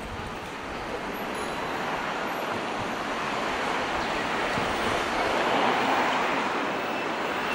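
Road traffic noise, an even hiss of passing vehicles that swells to its loudest about five to six seconds in, as a vehicle passes close.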